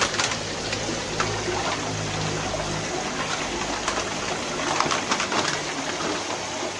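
Water running and splashing in a shallow shrimp tank, with sharper short splashes as a person wades and works the water by hand. A low hum stops about three seconds in.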